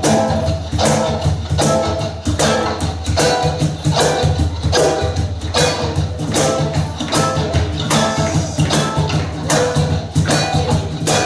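Live band playing an instrumental passage: a steady bass line under a regular drum beat of about two hits a second, with cymbal or tambourine on top.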